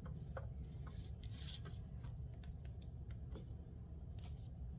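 Cardboard backer boards and a comic book being handled: soft paper-and-card rustles and a few light clicks and taps, over a steady low hum.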